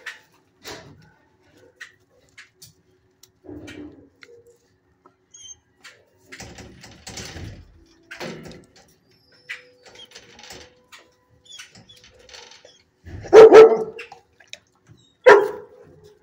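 A dog barks loudly near the end: one bark, then another about two seconds later. Before the barks there are only faint, scattered small sounds.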